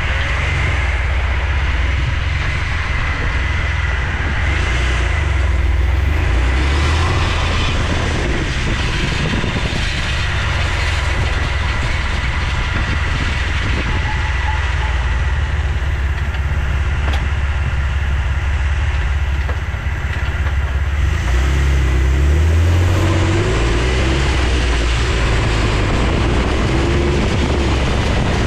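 Jeep Wrangler JK driving, with a low drivetrain and road rumble and a repeated clicking that the owner puts down to the front driveshaft. The engine pitch rises a little past two-thirds of the way through as it speeds up.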